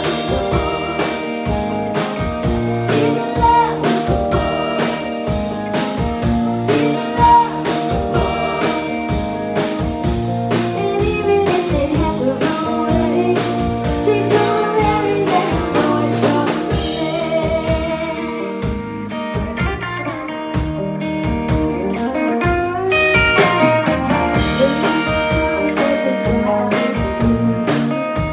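Live band playing: electric guitar, bass guitar and drum kit with a woman singing lead. The band eases into a quieter, sparser passage about two-thirds of the way through, then builds back up.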